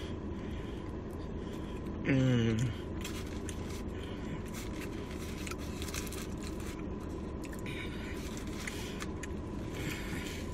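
A person chewing food close to the microphone, with scattered small wet mouth clicks and rustles. About two seconds in there is a short hummed voice sound that falls in pitch.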